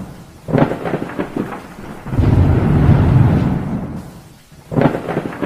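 Thunder during a rainstorm: a crackling clap about half a second in, a long low rolling rumble in the middle, and another crack near the end.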